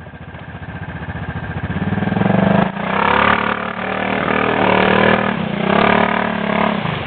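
Arctic Cat 650 ATV engine revving under load, growing steadily louder for the first couple of seconds, then running hard and high before easing off near the end.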